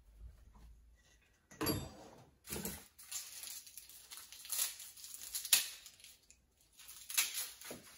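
Dry, papery onion skin crackling and tearing as an onion is peeled by hand, in short irregular bursts with a few sharper crackles.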